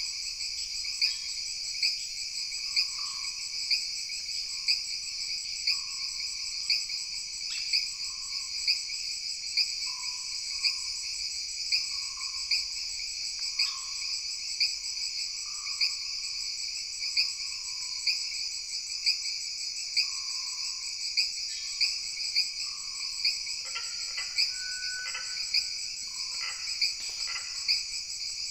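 Tropical jungle night chorus: insects trill steadily at a high pitch, with a pulse about once a second, while frogs call over and over in a lower voice. A few other, higher calls join in near the end.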